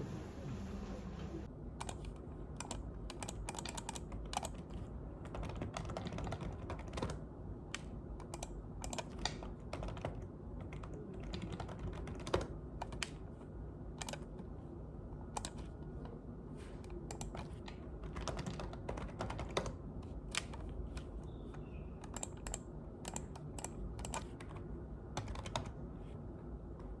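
Typing on a computer keyboard: irregular clicking keystrokes, starting about a second and a half in, over a low steady hum.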